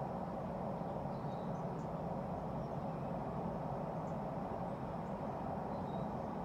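Steady low background rumble of outdoor ambience, with a few faint, short high chirps from small birds.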